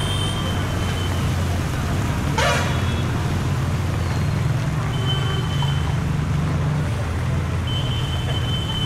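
Road traffic on a wet street: a steady low hum of vehicle engines, with short thin horn toots near the start, around five seconds in and near the end, and a brief whoosh about two and a half seconds in.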